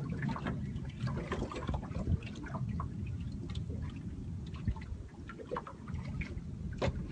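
Water lapping and trickling against the hull of a small boat, with scattered light clicks and knocks.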